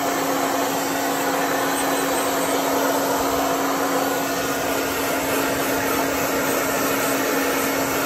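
Handheld hair dryer running steadily, blowing air over wet metal sewing-machine parts to dry them: a constant rush of air with a steady motor hum beneath it.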